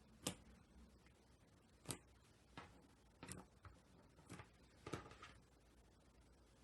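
Slime being handled, making about six short, sharp clicks at uneven spacing.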